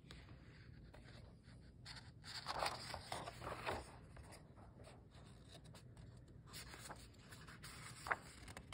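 Paperback book's cover and pages being turned by hand: a soft rustle of paper sliding, loudest from about two to four seconds in, with a short tap near the end.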